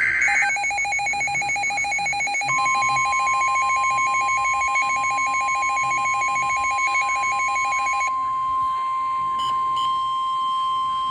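Emergency alert tones from a NOAA weather radio. The screech of the SAME digital header ends in the first half-second, then a rapidly pulsing electronic alarm beep stops about eight seconds in. The long steady warning alarm tone joins about two and a half seconds in and holds to the end.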